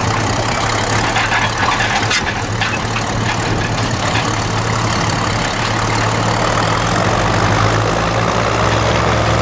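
Big diesel tractor engine running steadily while pulling a disc harrow and tyre roller, with a few metallic clanks about two to three seconds in.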